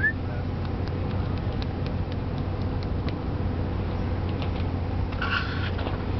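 Steady low machine hum, with faint scattered clicks and a short noisy sound about five seconds in.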